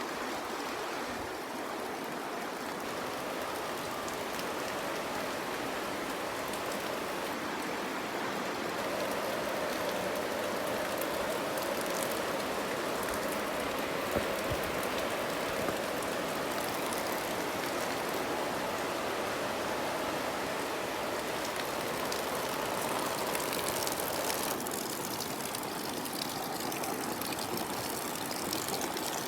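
Steady rain falling, an even hiss of water with a few sharper drop hits.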